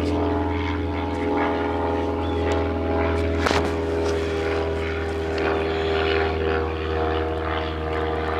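Propeller airplane engine droning steadily overhead, a low, many-toned hum, with a single sharp click about three and a half seconds in.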